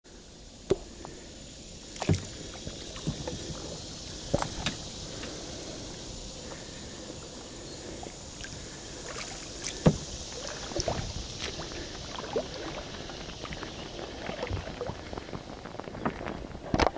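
Kayak on calm water, with paddle knocks and water splashes at irregular intervals a second or more apart, the sharpest about two seconds in and near ten seconds, over a faint steady hiss.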